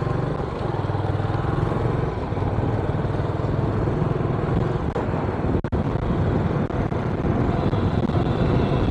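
Motorcycle engine running steadily while being ridden along a road, with a continuous low rumble and road noise, briefly dipping about five and a half seconds in.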